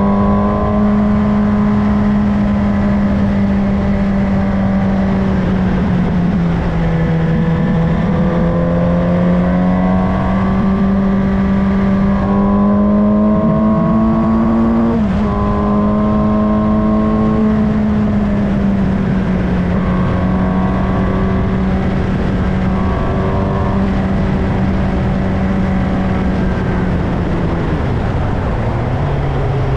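Suzuki GSX-S750's inline-four engine running steadily at high revs while riding, over wind rush. The engine pitch dips briefly a couple of times and falls lower near the end.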